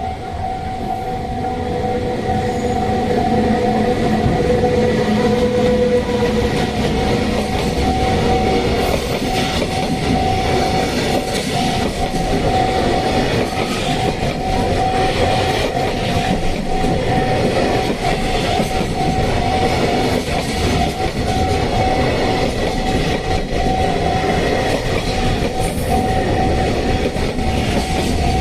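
Container freight train hauled by an EF210 electric locomotive rumbling over the level crossing, its wheels clattering on the rail joints, louder over the first few seconds and then steady. A level-crossing warning bell keeps ringing in a steady repeating tone over it.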